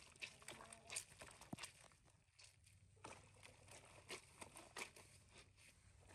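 Quiet, irregular clicks, taps and rustles of small handling noises, a few a second, with a short pause in the middle.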